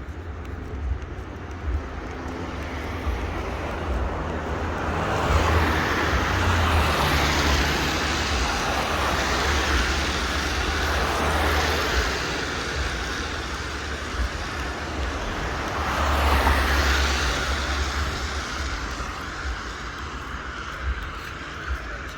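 Traffic passing on a wet road: a hiss swells up and fades away over several seconds, then a second shorter pass follows later, over a steady low rumble.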